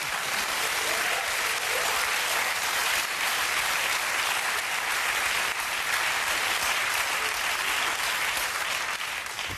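Studio audience applauding steadily, dying away near the end.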